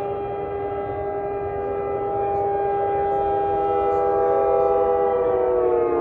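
Outdoor warning siren under test, sounding a steady chord of several tones; about five seconds in the pitch starts to fall as it winds down.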